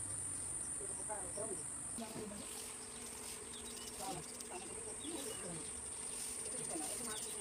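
Steady, high-pitched chirring of insects such as crickets, one unbroken tone, with faint wavering sounds underneath.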